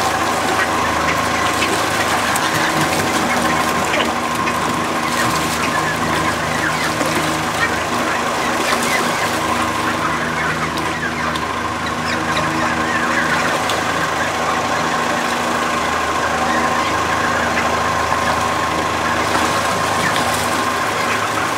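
Young mallards and Canada geese splashing and bathing in a small pond, wings beating the water, over a steady mechanical hum.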